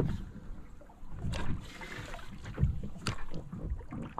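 Water lapping and sloshing against a fibreglass boat hull in irregular low surges, with a few light knocks.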